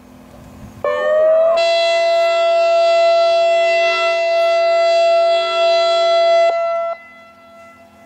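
ASC I-Force electronic siren sounding a loud tone. It opens with a brief sweep up and down, then holds a steady multi-note chord for about five seconds, which cuts off, its lower notes lingering half a second longer.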